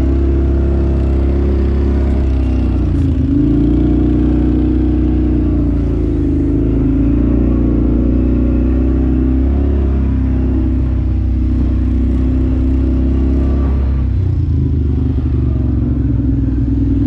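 A vehicle engine running, its pitch rising and falling as the throttle opens and closes.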